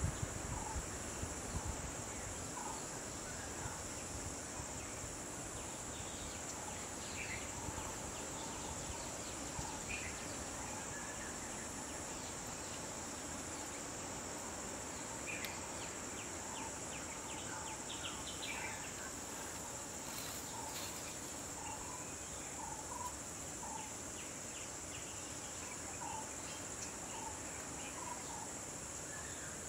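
A steady, high-pitched insect chorus, crickets or similar, with short chirps scattered through it.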